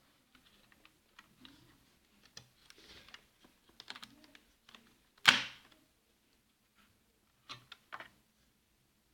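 Light scattered clicks and taps of hard plastic and metal computer parts being handled, with one loud sharp clack about five seconds in and two clicks near the end.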